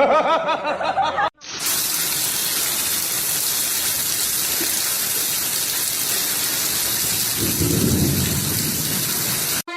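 Heavy rain with a steady hiss, and a low rumble about eight seconds in. It starts abruptly after a short wavering pitched cry and a brief break.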